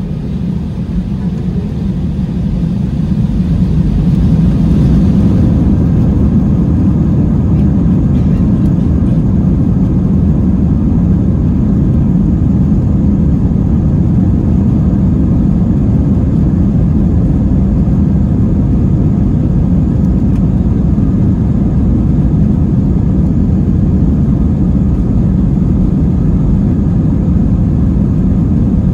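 An Airbus A320-200's jet engines heard from inside the cabin over the wing. The deep rumble builds over the first few seconds as power comes up, then holds steady and loud while the aircraft rolls along the ground.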